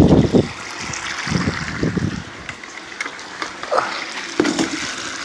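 Water running steadily through a Gold Cube concentrator and splashing back into its recirculating tub, an even hiss, with a few light knocks in the second half.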